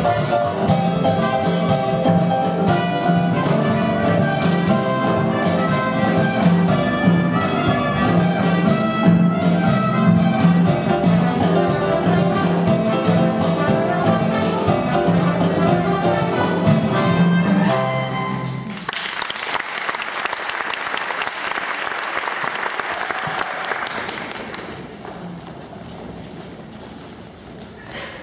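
Music with a steady beat accompanies the dance, then stops suddenly about two-thirds of the way through. The audience applauds, and the clapping fades away near the end.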